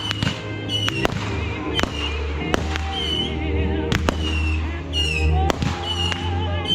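Fireworks going off: a run of sharp bangs and crackles with high whistling fireworks, some of the whistles warbling.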